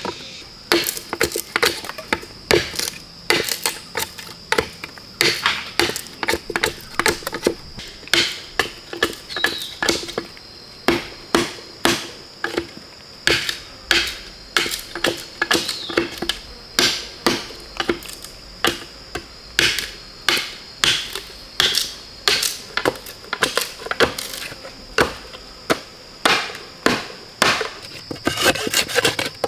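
Repeated chopping into wood with a hand tool, steady sharp strikes about one to two a second, over a steady high-pitched whine.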